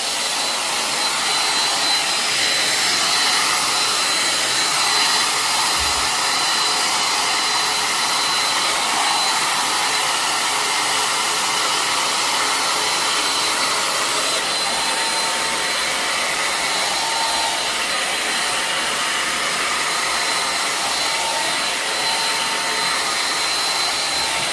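Handheld blow dryer running steadily on its high setting: an even rush of air with a thin, high whine over it. A second, fainter tone joins about halfway through.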